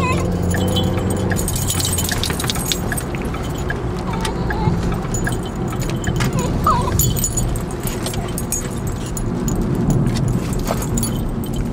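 Basenjis whining in excitement inside a moving car: a few short, high whines over steady road and wind noise from an open window, with light metallic jingling.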